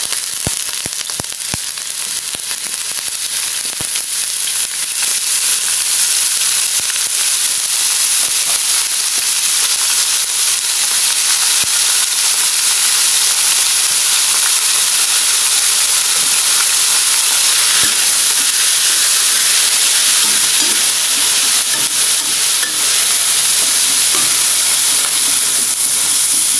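Ground beef frying in a hot stainless-steel wok with onion and garlic: a steady sizzle that grows louder over the first few seconds as the meat goes in, then holds. A few light clicks sound near the start.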